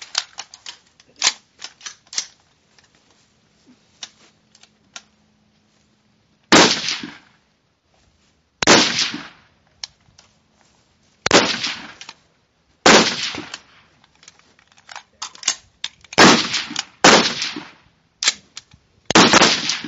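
Rifle fire on a firing line during a prone rapid-fire string: about seven loud, sharp cracks from the nearby AR-15 carbine, spaced one to three seconds apart, each with a short echo. Fainter shots from other rifles down the line come in between, several of them in the first couple of seconds.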